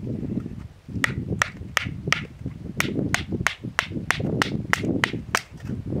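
Dry wood being struck in quick, even blows: about fourteen sharp knocks, roughly three a second, with a short pause about two and a half seconds in, over a low rumble of wind on the microphone.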